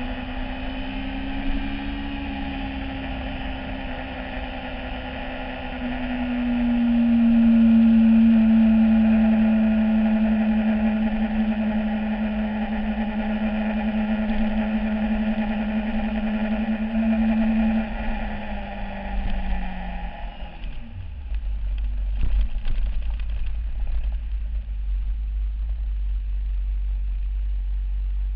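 Yamaha YZF-R6 inline-four engine running at a steady high cruising pitch, growing louder for a while, then falling in pitch as the bike slows, settling about three-quarters of the way through into a low idle rumble with scattered knocks.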